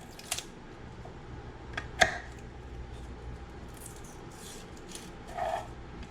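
Garlic cloves being peeled by hand: a few sharp clicks and taps, then soft rustling of the papery skins.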